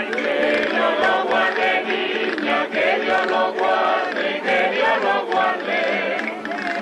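A Canarian parranda folk group singing together in chorus, with strummed guitars and small guitar-like string instruments accompanying them.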